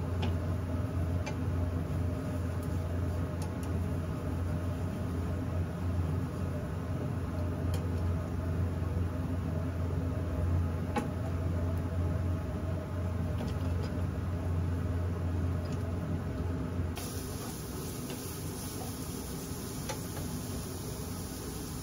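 Stir-frying in a frying pan on a gas hob: a steady low hum, with scattered light clicks of long cooking chopsticks against the pan. About seventeen seconds in, the hum drops away and a faint hiss remains.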